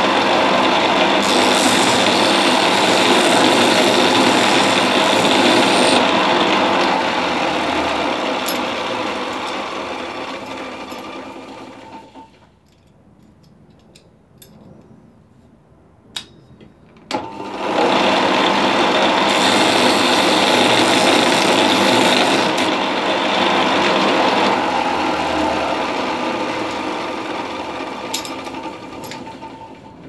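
Bench belt-and-disc sander grinding a horn woodcock head: the machine runs with a higher hiss while the horn is pressed to the abrasive, then dies away slowly. After a lull with a few clicks, it starts again suddenly about 17 seconds in for a second pass and fades again near the end.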